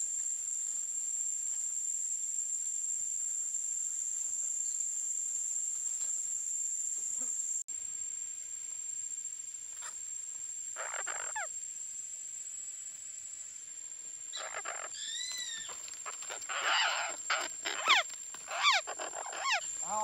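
A steady, high-pitched insect drone, then from about ten seconds in a flock of parakeets calling with short, harsh, arching squawks that come thick and fast over the last few seconds.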